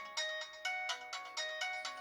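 A built-in ringtone of the LG Optimus L5 (E455) phone playing: a quick melody of short, quickly fading notes, about four to five a second.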